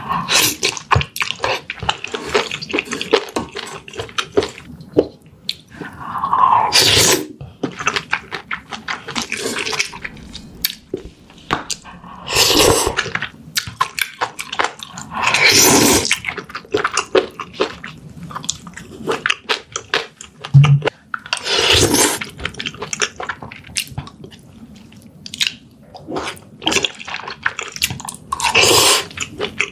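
Close-miked mukbang eating: wet, clicky chewing of noodles and seafood in a spicy broth, with a loud slurp of noodles every few seconds.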